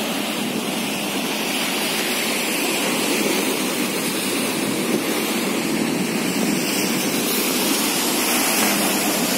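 Sea waves breaking and washing over a rock seawall: a steady rushing noise that stays even throughout.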